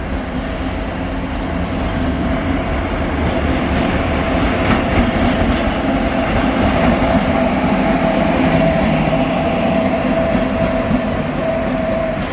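Electric-hauled freight train rolling past: a continuous rumble and clatter of wheels on the rails under a steady whine, growing louder over the first couple of seconds.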